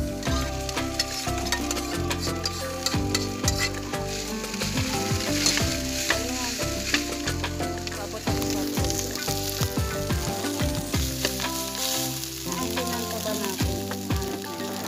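Metal spatula stirring and scraping cooked rice in an aluminium wok, with repeated clicks and scrapes against the pan over a light sizzle as the rice fries into sinangag (fried rice).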